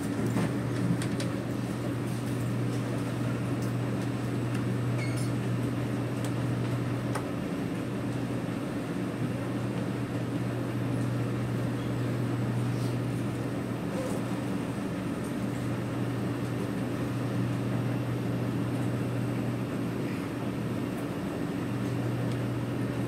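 C751B metro train standing at a station with its doors open: a steady hum from its air-conditioning and auxiliary equipment, with a low drone that fades and comes back a couple of times and faint clicks over it.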